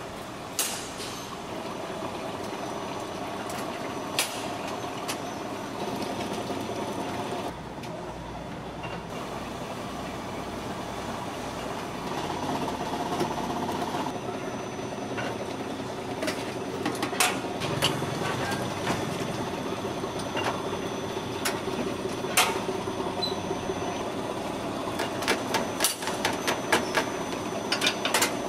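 APACK automatic batter-depositing and baking machine running: a steady mechanical hum with scattered sharp metallic clicks and clacks, which come thicker near the end.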